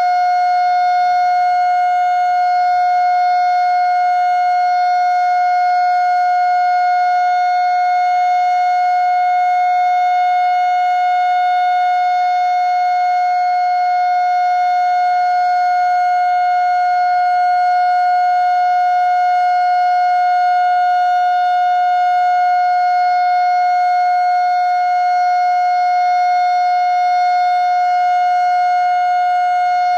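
Darley Model 2 outdoor warning siren sounding one steady tone at constant pitch and level during a tornado siren test.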